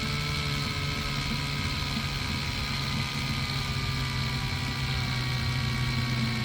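Ryobi USB lithium cordless screwdriver's motor running unloaded with its trigger held on, a steady whine that slowly drops in pitch as its 2 Ah battery nears exhaustion at the end of a one-hour run.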